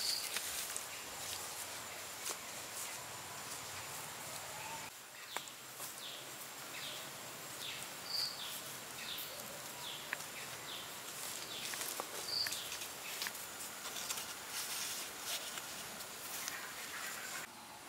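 Outdoor rural ambience: a steady high hiss like insects, with a run of short, falling high chirps in the middle and a few brief clear high calls.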